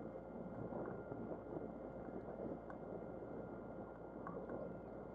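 Steady noise of a small yacht under way: a mixed wash of water and wind, with a few faint scattered ticks.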